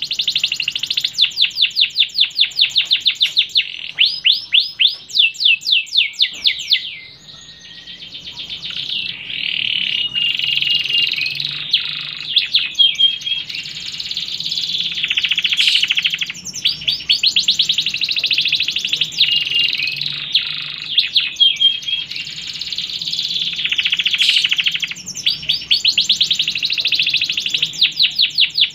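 Domestic canary singing a long song that alternates very fast rolling trills with warbling phrases, with a short break about seven seconds in.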